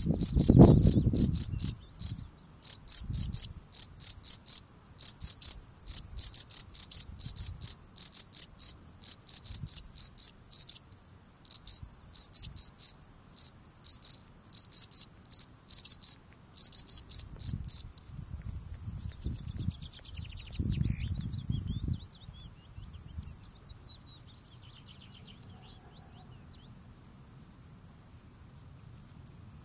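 European field cricket (Gryllus campestris) singing: loud, high, evenly pulsed chirps, about three or four a second in short runs. About two-thirds of the way through the loud song stops and only fainter chirping goes on, with a few low rustles.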